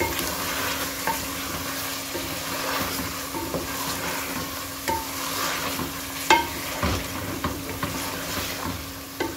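Chicken and masala sizzling in a metal pot while a wooden spoon stirs and scrapes through it, with a few sharp knocks of the spoon against the pot. This is the frying-down (bhuna) stage of the curry, before water is added.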